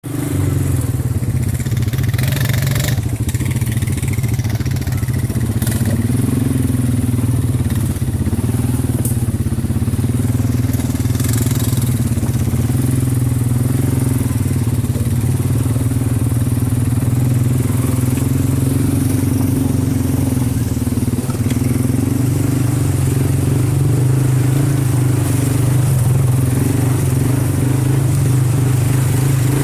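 A vehicle engine running steadily, a constant low drone with no change in speed.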